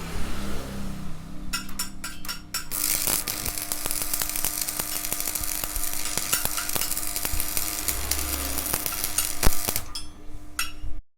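Electric arc welding: a steady crackling hiss of the arc for about seven seconds, starting after a few sharp taps and stopping shortly before the sound cuts off.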